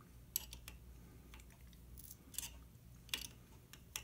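A 7 mm combination wrench tightening small nuts on a bolt, giving a handful of faint, irregular metallic clicks as the wrench meets and turns the nut.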